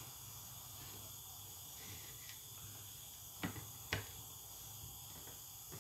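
Two light knocks about half a second apart as a ceramic plate of fruit is handled on a wooden table, over a faint steady high-pitched hiss.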